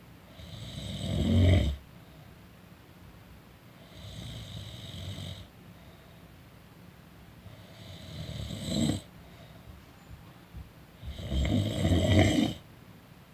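A person snoring during a nap: four snores, one every three and a half to four seconds. Each is a rough, rattling breath that swells and then stops sharply, and the first and last are the loudest.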